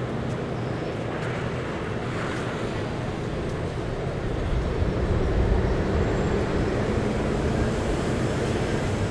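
Steady rumble of city traffic, getting louder about halfway through.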